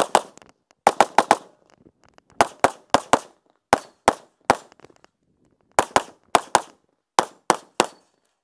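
Pistol shots from an Open-division race pistol with a compensator, fired rapidly: about twenty sharp cracks in quick strings of two to five with brief pauses between, as pairs of shots are put on each target.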